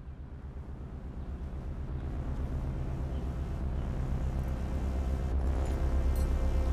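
Low, pulsing drone of a suspense film score with held tones above it, steadily growing louder.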